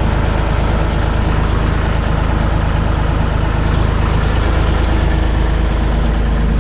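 John Deere 260 skid steer's diesel engine running steadily at a constant speed.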